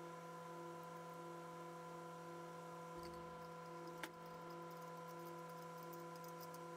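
Quiet room tone: a faint steady hum made of several tones, with one small click about four seconds in.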